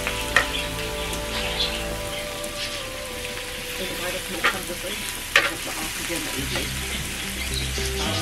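Sliced pork sizzling and frying on a tabletop grill pan. Metal tongs click sharply against the pan three times as the meat is turned.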